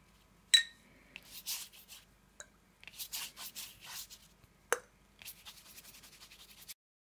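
Wet watercolour brush swishing across watercolour paper in several quick strokes as clean water is laid over the whole sheet. A sharp, ringing clink sounds about half a second in, and a short knock just before five seconds.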